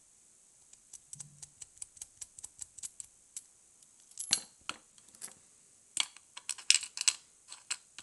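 Small metal clicks and ticks of a tool and parts on a brass Mul-T-Lock lock cylinder being taken apart: a run of quick faint ticks, then louder sharp clicks from about four seconds in.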